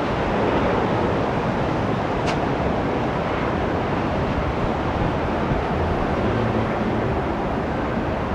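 Steady rushing noise of an Airbus A350-900 jet airliner, with a single short click about two seconds in.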